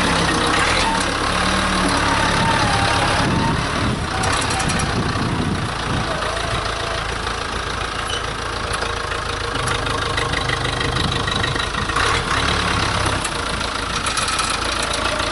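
Case 580C backhoe's engine running, its low note shifting a few times as the load changes.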